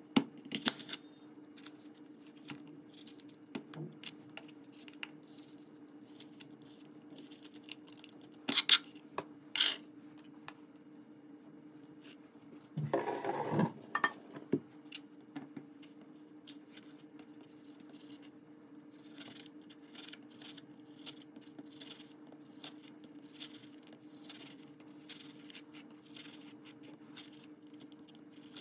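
Kitchen knife cutting an apple on a plastic cutting board: scattered clicks and knocks of the blade and fruit on the board, a longer noisy cutting stretch about halfway through, and quick small ticks of slicing near the end. A steady faint hum lies underneath.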